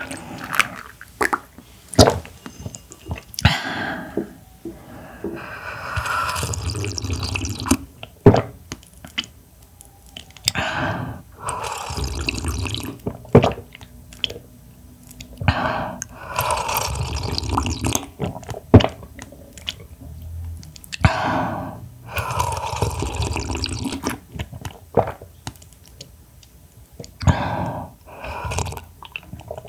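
Close-miked wet chewing and slurping of raw clam, in repeated stretches of a second or two, with sharp clicks scattered between.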